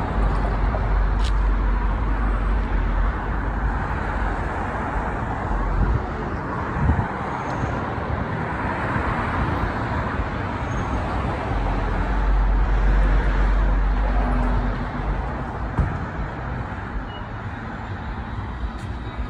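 Road traffic on a city street: cars driving past in a steady wash of tyre and engine noise. A deep rumble swells twice, and there is a brief thump about seven seconds in.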